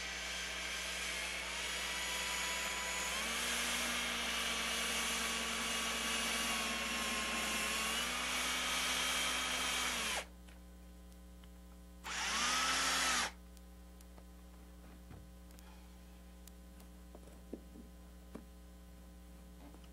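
Cordless drill with a very fine bit boring a pilot hole into old painted quarter-round trim. The motor whines steadily for about ten seconds, its pitch stepping up slightly partway through, then stops. A second short burst of about a second follows, rising and falling, then a few faint taps.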